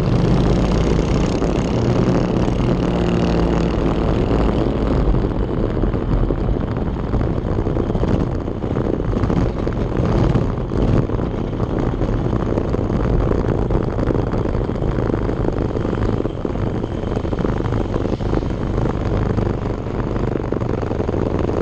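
Go-kart engine running steadily at low speed, heard from the kart's onboard camera, with no sharp revving.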